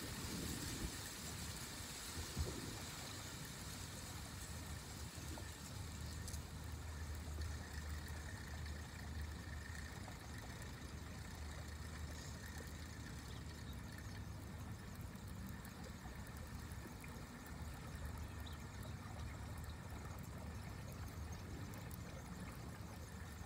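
Faint steady low rumble under a light even hiss, with no distinct events.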